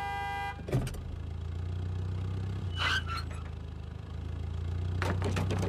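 Car engine running low and steady as a station wagon reverses a boat trailer. A car horn honks briefly at the start, and there is a short, sharper sound about three seconds in.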